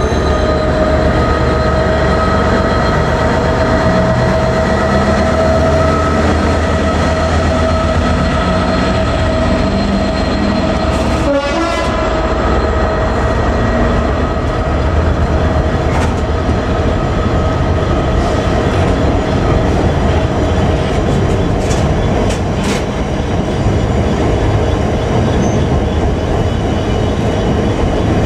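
A Class 66 diesel-electric locomotive, with its two-stroke V12 EMD engine, passes and is followed by its train of enclosed car-carrier wagons. The wagons roll by with a steady low rumble and a few sharp clicks from the wheels. A steady high whine fades out about two thirds of the way through.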